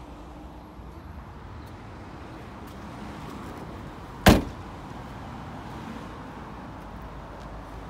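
A car door slammed shut once, a single sharp bang about four seconds in, over a steady low rumble.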